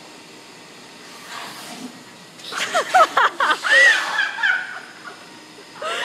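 A vacuum cleaner running with a steady hiss through a hose held to a horse's muzzle, then from about two and a half seconds in, loud laughter rising and falling in pitch over the hiss.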